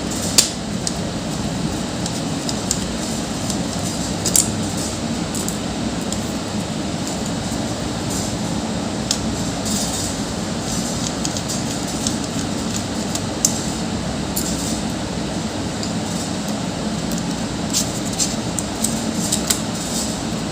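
A few light clicks and taps from handling a laptop's internal battery and its screws, over a steady low rumble of background noise.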